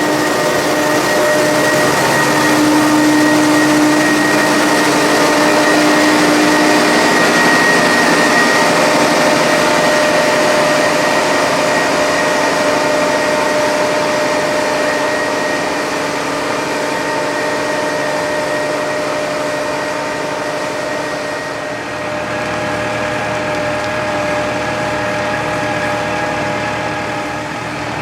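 Machinery running steadily with a constant whining hum over a wide rushing noise; the tone shifts slightly and the sound dips about three quarters of the way through.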